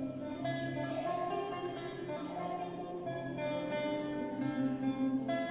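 Round-backed lute played solo: a melody of plucked notes over ringing bass notes.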